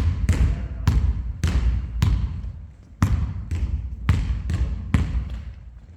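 A basketball dribbled on a gym's hard floor, about two bounces a second, each bounce echoing in the hall, fading toward the end.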